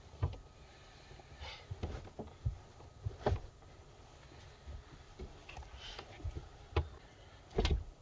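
Scattered knocks, thumps and shuffling as foam seat cushions in a campervan are shifted and set down to make up the bed. The sharpest knocks come about three seconds in and near the end.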